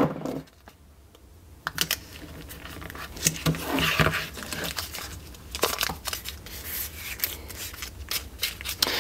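Blue painter's tape being torn into strips and pressed onto a plastic blue-gun replica revolver: a string of short tearing and crinkling crackles with light taps of handling.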